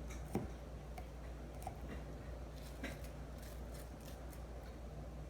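Faint kitchen handling: a few soft, scattered clicks as a knife pierces and works raw chicken pieces, over a steady low room hum.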